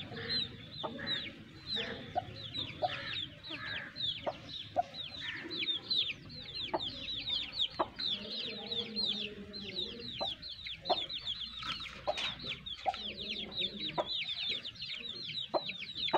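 Chicks peeping steadily in quick, high, falling notes, several a second, over low clucking from hens. Short sharp taps come from the hens pecking at feed on the coop floor.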